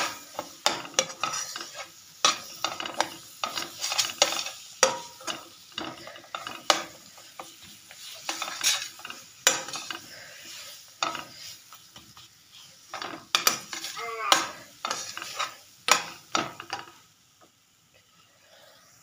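Metal slotted spatula scraping and knocking against a frying pan in quick, irregular strokes while stirring chopped dates and nuts over the heat, with a light sizzle under it. The strokes stop about two seconds before the end.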